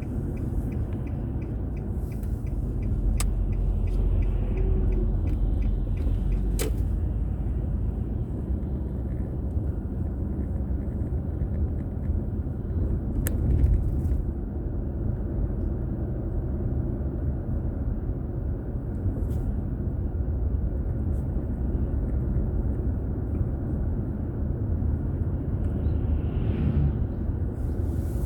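A car driving, heard from the onboard camera: a steady low rumble of road and engine noise. There is faint regular ticking in the first few seconds and a few sharp clicks.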